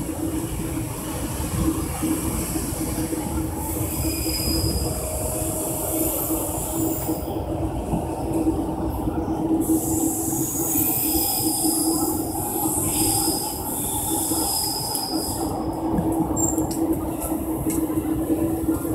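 Electric train running on the elevated tracks, with a steady low hum. Thin, high wheel squeals come and go several times from a few seconds in.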